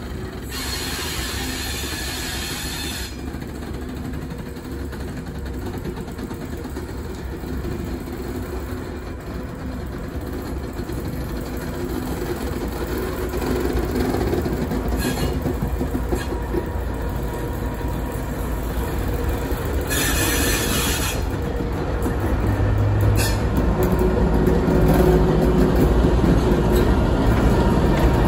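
DR class 232 "Ludmilla" diesel locomotive, with its Kolomna 16-cylinder two-stroke diesel engine, running with a steady low hum as it rolls slowly closer and grows louder, wheels rumbling on the rails. Two brief hisses come about a second in and about twenty seconds in.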